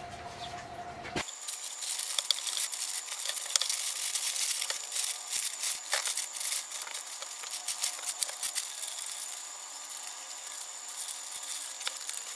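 Crinkling and rustling of a plastic vacuum bag being handled and smoothed over a tabletop, many small crackles, with a faint steady high whine behind them.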